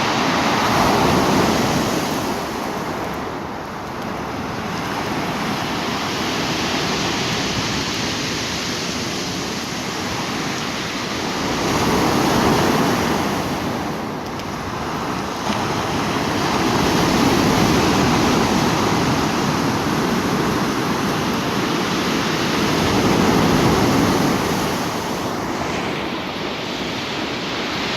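Sea surf washing onto the shore. The waves swell and fall away every few seconds in slow surges, with the sea choppy.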